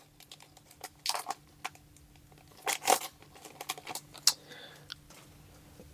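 Scattered short crinkles and rustles of a foil Pokémon booster pack and its cards being handled. The louder ones come about a second in, near three seconds, and just past four seconds.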